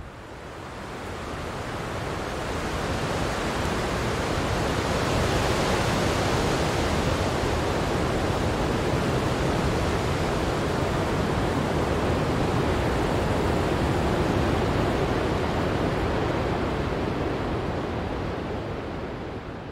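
Steady, even rushing noise that fades in over the first few seconds and fades out at the end.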